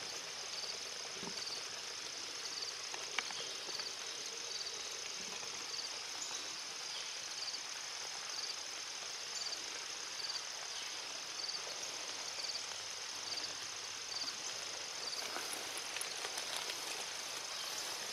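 Insects chirping steadily in tall grass, with a second short chirp repeating about once a second. Near the end it gives way to rustling as someone walks through the wet grass.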